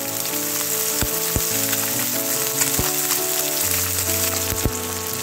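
Small mourala fish sizzling in hot mustard oil on a high flame: a steady crackling hiss with a few sharp pops of spitting oil. Soft instrumental music plays underneath.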